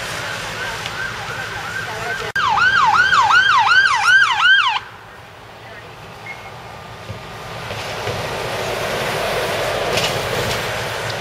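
Fire engine siren yelping with fast repeated sweeps, faint at first, then suddenly much louder a couple of seconds in before cutting off abruptly. Later a fire engine drives past close by, its engine and tyre noise swelling toward the end.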